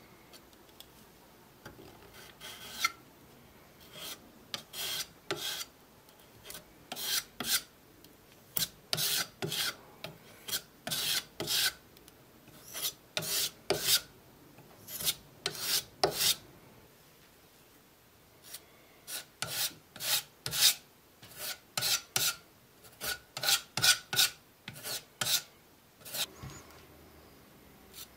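A metal putty knife scraping wood filler over the worn wooden body of an old hand plane, in many short scraping strokes with a pause of about two seconds past the middle.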